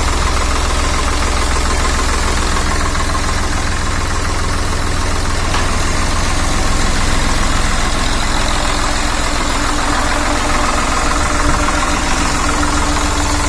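Swaraj 855 tractor's three-cylinder diesel engine idling steadily.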